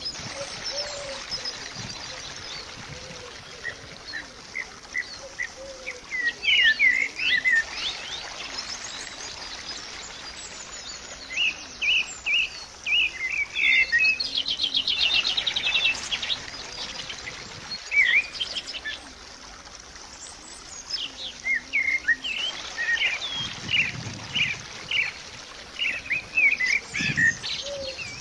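Songbirds chirping in short bursts, with a fast trill about halfway through, over a steady soft hiss.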